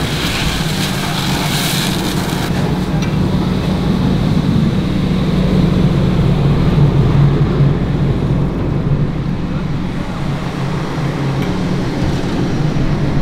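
Fire engine's Cummins L9 diesel running steadily with a low hum. For the first couple of seconds a hose stream hisses as it sprays into the burning dumpster.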